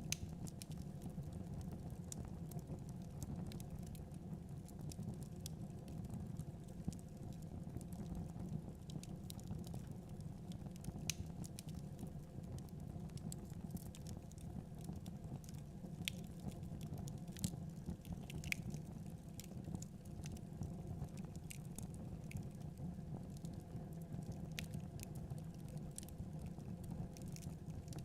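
Wood logs burning in a fireplace, crackling with irregular sharp pops over a steady low rumble.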